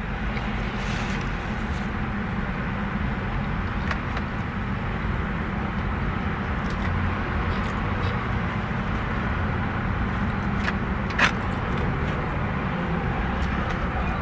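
Steady running noise of a car heard from inside its cabin, with a few light clicks and one sharper click about eleven seconds in.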